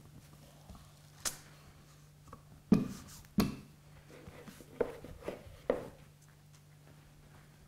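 Knocks and thumps of a wooden rolling pin and hands working dough on a wooden counter: two louder thumps about three seconds in, then a few lighter knocks, over a faint steady hum.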